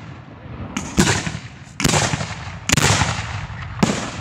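Aerial fireworks bursting overhead: four sharp booms about a second apart, each trailing off in a long echoing rumble.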